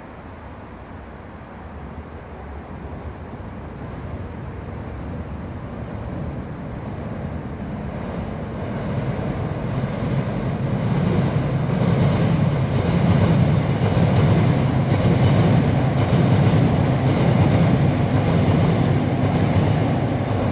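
Seoul Subway Line 7 electric train running across a railway bridge, a steady rumble of wheels on rail that builds gradually as it approaches. It is loudest from about twelve seconds in, as it passes close by, and eases slightly near the end.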